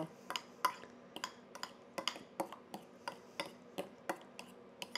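Spoon clicking against a glass mixing bowl in an even rhythm, about three light taps a second, while stirring a thick ricotta and egg filling.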